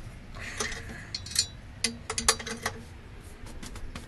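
Metal clicks and clinks as an engine block is rotated on an engine stand. A quick run of sharp clinks in the first three seconds, a few ringing briefly, then a few faint ticks.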